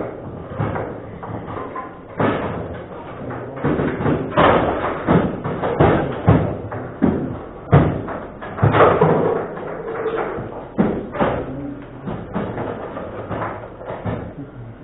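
Table football being played: irregular hard knocks and thuds, one to two a second, as the ball strikes the players and the table walls and the rods are shot and stopped.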